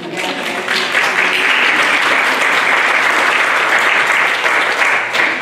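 A congregation applauding: many hands clapping at once, swelling within the first second, holding steady and loud, then dying away near the end.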